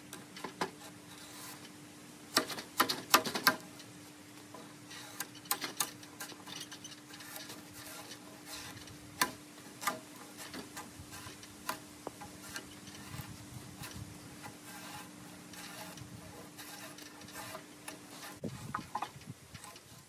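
Bark being scraped and peeled off a log by hand: irregular clicks and scrapes, with a cluster of sharp knocks about two and a half seconds in. A faint steady hum runs underneath and stops near the end.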